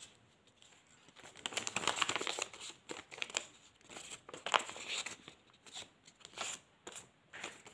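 A small paper pattern piece being folded and creased between the fingers: irregular paper rustling and crinkling in short spurts, with scattered crisp crackles.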